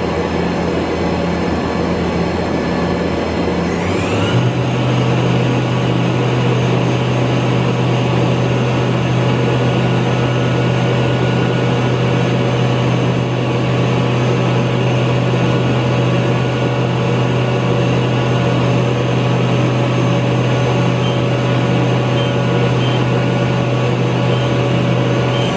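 Spindle of a 2007 Hyundai Kia VX-400 CNC vertical machining center running at high speed, in the range of 10,000 to 12,000 rpm, with a steady hum and whine. The pitch steps up about four seconds in as the spindle speeds up, holds steady, then begins to fall at the very end as it winds down.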